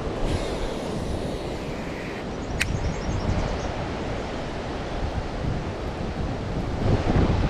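Steady rushing roar of a waterfall, with wind buffeting the microphone. A single sharp click about two and a half seconds in.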